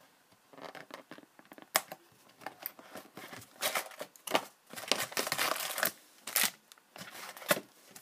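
A hobby box of hockey cards being torn open and its wrapped card packs pulled out and stacked: a sharp snap nearly two seconds in, then several bursts of tearing and crinkling of paper and cardboard.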